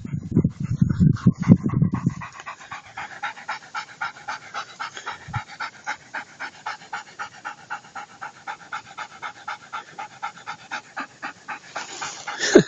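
Dog panting rapidly, about four or five breaths a second, loud and deep for the first two seconds, then lighter and steady. A short louder sound comes right at the end.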